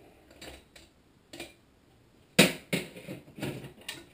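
Clicks and knocks of metal parts being handled on a small engine: a few light clicks, then a quick run of sharper knocks about two and a half seconds in.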